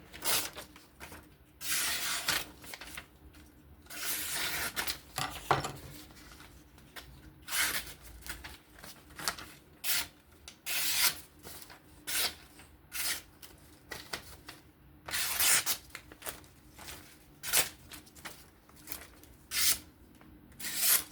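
Repeated rubbing strokes worked by hand on a folding knife, each stroke short and hissing, coming irregularly about once every one to two seconds.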